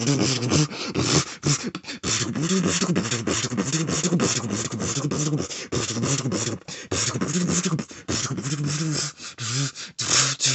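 Beatboxing: a fast, unbroken stream of mouth-made percussion, with hissing hi-hat and snare sounds over a low hummed tone.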